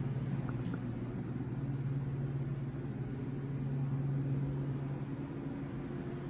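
A steady low mechanical hum, even in pitch and level, with a couple of faint ticks.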